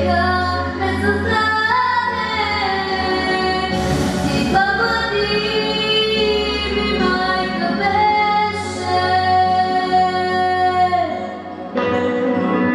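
A female solo voice singing a song over instrumental accompaniment, holding long sustained notes between phrases.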